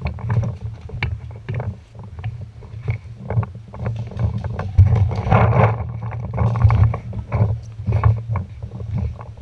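Footsteps walking over gravel and dry leaves, a steady thud about twice a second, with a stretch of rustling and scraping in the middle.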